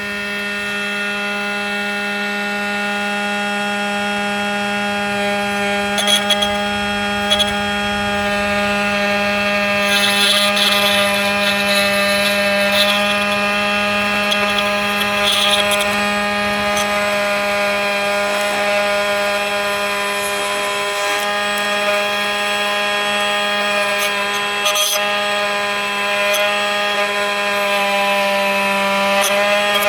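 Bauer oscillating multi-tool running with a steady, high-pitched buzzing drone while its caulk-removal blade scrapes old caulking off a wall. The scraping grows louder in stretches, heaviest about a third of the way through, with a few sharp clicks of the blade catching.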